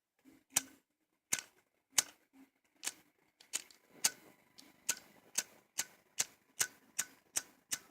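A lighter's flint wheel flicked over and over, about fourteen sharp clicks that come faster as it goes on, striking for a spark that doesn't catch.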